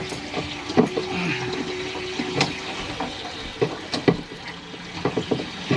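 Water rushing in around a boat's propeller shaft through the stern tube while the shaft seal is off, with sharp metal clinks and knocks of tools. A steady hum runs through the first half and stops a little before the middle.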